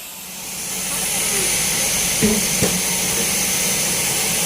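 Sawmill band saw cutting through a teak log: the cutting noise swells over the first second, then holds steady with a high whine over a low hum.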